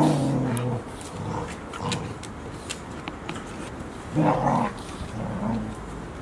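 Golden retriever barking in drawn-out woofs: one at the start, another about four seconds in, and a shorter one just after.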